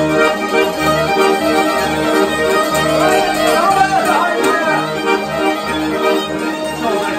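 Albanian folk ensemble playing live: an accordion with a rhythmic pulsing bass, a violin and plucked long-necked lutes. Some gliding notes come through around the middle.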